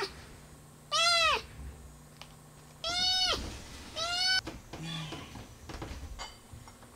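Young kitten meowing three times, each a high call about half a second long that rises and falls in pitch; a frightened kitten frozen in place, calling out.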